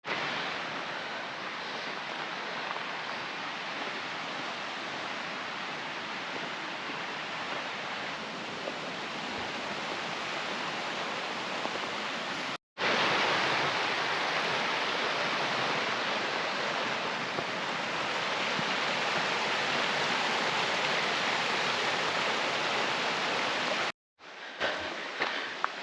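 Rushing creek: a steady roar of running water, cut off briefly about halfway and again near the end, where it comes back quieter with a few sharp ticks.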